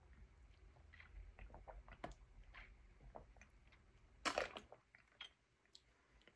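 Faint mouth sounds of sipping from a juice box through a straw: soft sucking clicks and swallows, with one short, louder rush of noise about four seconds in.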